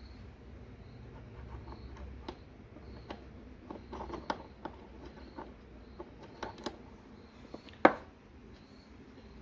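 Parts of a home-built lathe's adjustable tailstock being handled and adjusted: scattered light clicks and knocks, with one louder knock about eight seconds in.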